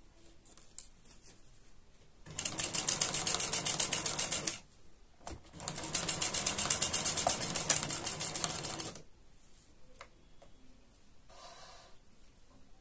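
Sewing machine stitching in two runs of a couple of seconds each, with a fast, even rhythm and a brief stop between them.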